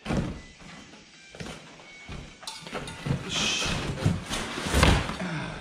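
A mountain bike tyre and wheel being handled against a cardboard box: scattered knocks, scrapes and cardboard rustling, with the loudest thud about five seconds in.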